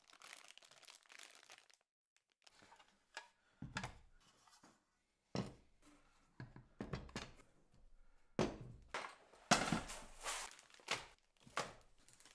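Unpacking handling noise: plastic bags crinkling and aluminium machine parts being lifted out of foam packing and set down on a wooden table with scattered soft knocks, the knocks louder and more frequent in the second half.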